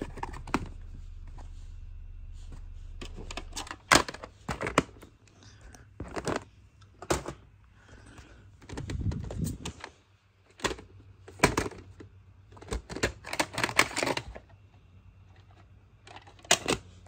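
Plastic VHS cassettes and clamshell cases clacking and clicking as they are handled, opened and shut, in an irregular string of sharp clicks and knocks. A low steady hum cuts off about four seconds in, and a short rubbing rumble comes near the middle.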